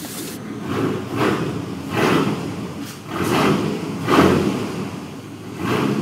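Straight-piped dual exhaust of a GMC Sierra's 4.3L V6 as the truck is driven hard, the engine running a bit flooded. It comes in repeated surges, about one a second.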